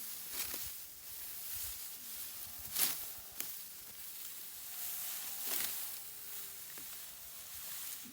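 Dry rice stalks rustling, with a few short, sharp swishes a second or two apart.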